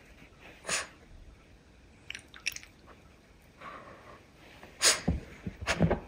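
A Shih Tzu sniffing with her nose in a crocheted snood: a few short, sharp puffs of breath like sneezes, the strongest near the end, with a few faint clicks about two seconds in.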